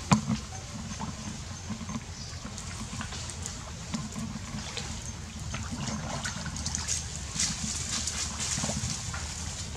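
Water splashing and trickling among flooded trees, with scattered small splashes over a steady low rumble. A sharp knock sounds right at the start.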